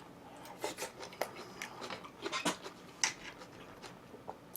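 Close-miked eating sounds: a person chewing food, with irregular short crunches and smacks.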